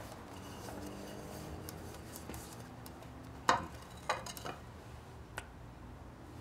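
A few light clicks and knocks over quiet room tone: one sharper knock about three and a half seconds in, then several smaller ones soon after.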